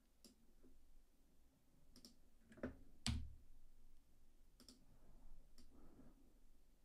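About six scattered clicks from a computer mouse and keyboard being used to edit on screen. The loudest, about three seconds in, has a low thump.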